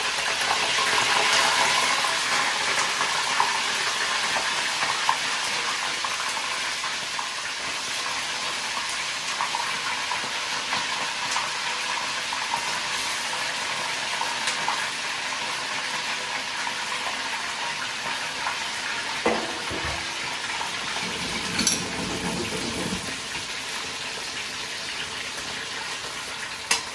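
Chicken pieces sizzling as they fry in hot oil in a cooking pot, a steady hiss that is loudest in the first couple of seconds, with a few short clicks.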